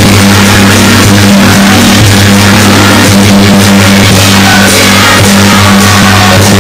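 Loud, distorted music with a steady low hum beneath it.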